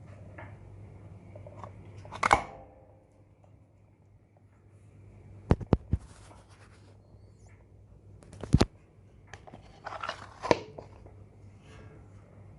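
Steady low hum with a handful of sharp clicks and knocks; the first, about two seconds in, rings briefly.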